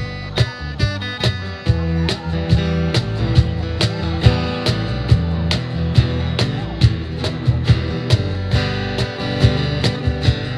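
Live band playing an instrumental passage: a strummed acoustic guitar and an electric guitar over a steady percussive beat.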